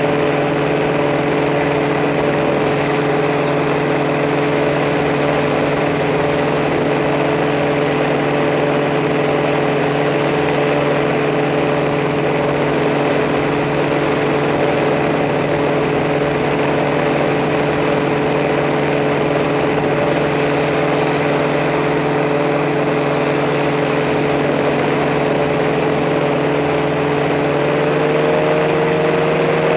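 Multirotor camera drone's motors and propellers humming steadily while it hovers, the pitch rising slightly near the end.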